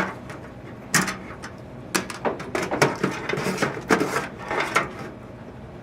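Optical disc drive being slid into a computer case's drive bay: a series of knocks and scrapes of metal and plastic, busiest between about one and five seconds in.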